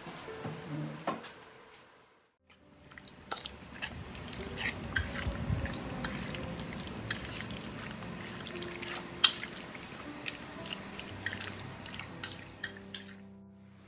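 Water dripping in irregular, sharp drops over a steady wash of noise.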